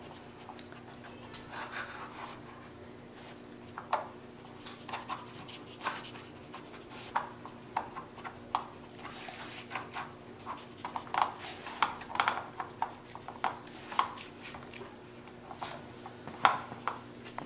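A small dog sniffing and nosing at a plastic treat-puzzle toy. Its sliding plastic blocks give irregular short clicks and taps, several in a row at a time, as the dog pushes them to uncover treats.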